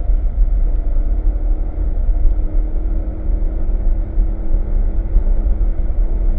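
BMW E92 M3's V8 engine running under load, its pitch rising slowly as the car gathers speed, over a heavy low rumble of road and wind noise.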